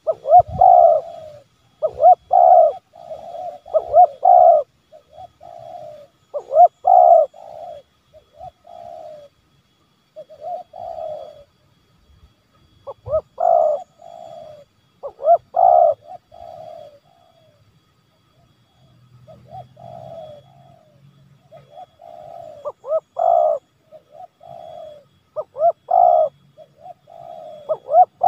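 Spotted dove cooing, the 'menekan' pressing call that provokes wild doves to come closer: repeated phrases of throaty coos, some loud and some fainter, with a pause of about two seconds past the middle.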